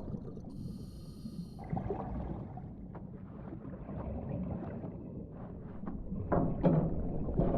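Underwater film ambience: a steady low rumble with irregular bubbling bursts from a diver's scuba breathing, loudest near the end. A short burst of high, crackly static comes about half a second in.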